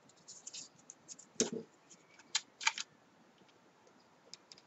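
Paper flower petals being handled and pressed between fingers: scattered soft crackles and small clicks, with a duller knock about a second and a half in and a quick cluster of clicks a little later.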